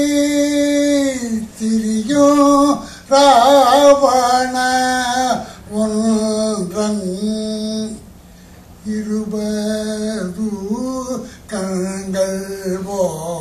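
A man singing a Tamil song solo, holding long, wavering, ornamented notes, with a short break about eight seconds in.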